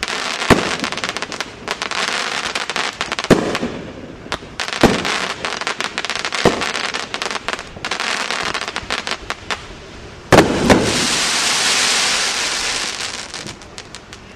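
AAH Fireworks 'Oohs & Aahs' 500-gram aerial repeater cake firing its final shots: a sharp bang every second or two, each followed by a spray of crackling stars. About ten seconds in, two bangs come in quick succession, then a long dense crackle fades away.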